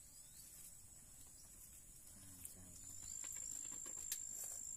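Insects calling in a steady high-pitched drone, faint at first and louder from about three seconds in.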